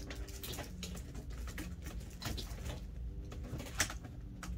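Hands rummaging through books and papers on a desk, with scattered small knocks and rustles. A short low steady tone comes twice, near the start and past the middle.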